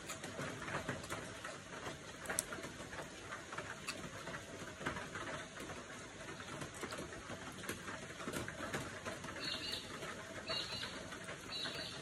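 Close-up eating sounds: soft chewing, mouth clicks and crunching bites of raw vegetables and a spicy beef salad. Three short high chirps come near the end.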